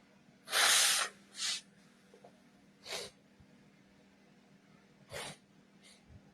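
A loud sneeze about half a second in, followed by four short nose sniffs spaced a second or two apart, the last one faint.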